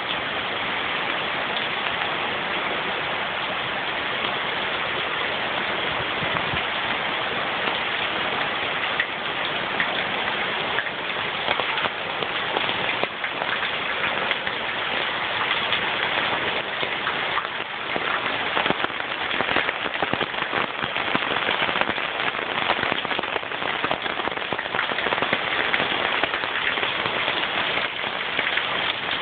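Heavy rain falling steadily onto a flooded street and lawn: a dense, even hiss of countless drops with fine splashes.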